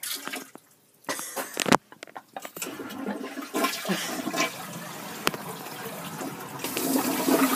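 Toilet flushing: a few sharp clicks and knocks at the start, then a steady rush of water that swells louder near the end.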